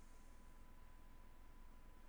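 Near silence: faint steady hiss and low hum, with a thin steady tone held at one pitch throughout.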